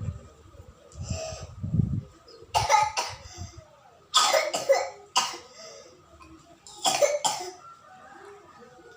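A small child with flu coughing: about four short bouts of coughs, some in quick pairs.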